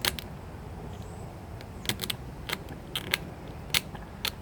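Scattered light clicks and taps of hand tools and metal parts being handled while a washing machine motor is opened up, a sharp click every half-second to second at irregular intervals over a low steady background.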